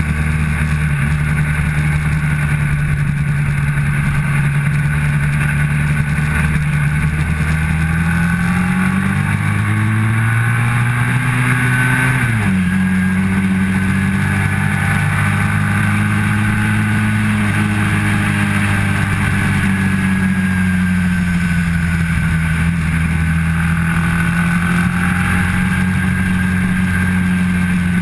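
Motorcycle engine running hard on a racetrack. The revs climb for a few seconds, drop sharply about twelve seconds in, then hold fairly steady with a slight dip and rise near the end.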